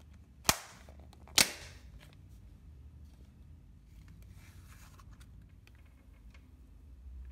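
Cloud slime being handled: two sharp pops less than a second apart near the start, then faint soft crackling and squishing.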